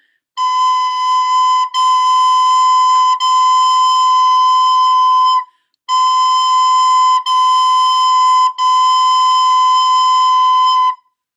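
Plastic soprano recorder playing the note B over and over on one steady high pitch: six held notes in two groups of three, each note cut off by a slight break, with a short pause about five and a half seconds in.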